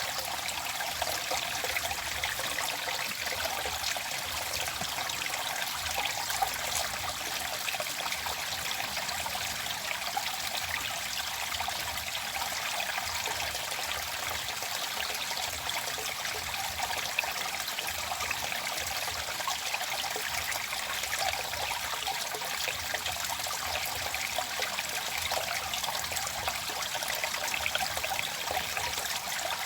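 Running water trickling and splashing steadily, as a forest stream.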